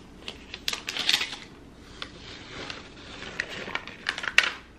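A new iPad Air being handled, with sharp irregular clicks of fingernails on its aluminium back and the crinkly rustle of the protective wrap being peeled off. The loudest click comes near the end.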